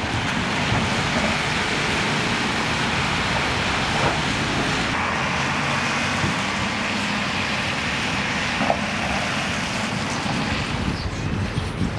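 Steady traffic noise on a rain-soaked street: cars passing over wet asphalt, their tyres throwing up spray.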